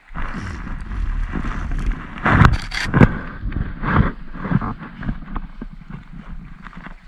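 Rustling and knocking of hands, sleeves and fly line rubbing close to a body-mounted camera's microphone as line is stripped in, with a low wind rumble. A few sharp knocks stand out about two and a half and three seconds in.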